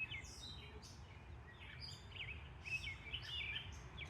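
Outdoor birdsong: short, quick chirps and whistled phrases at varied pitches, some rising and some falling, over a steady low background rumble.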